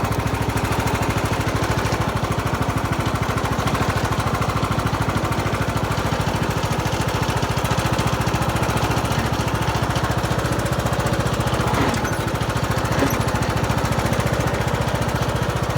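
Riding lawn mower engine running steadily with an even, fast pulse.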